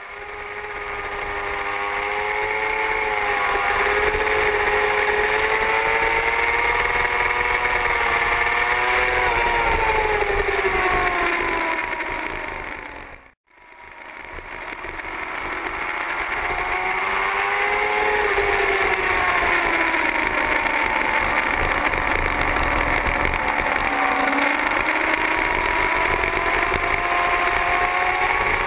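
Motorcycle engine on track, heard through a camera mounted on the bike: its note rises and falls as the rider works the throttle through the corners, over steady wind and road hiss. About halfway through, the sound fades out for a moment and then fades back in.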